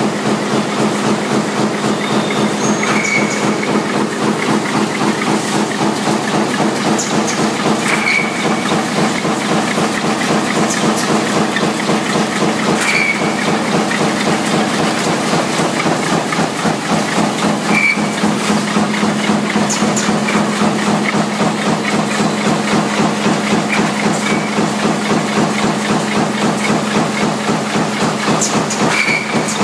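Stator-rotor lamination stamping line running continuously, strip steel fed from a turning coil through a straightener and gear feeder into a press: a steady machine hum under a fast, even clatter of the press, with a short hiss about every five seconds.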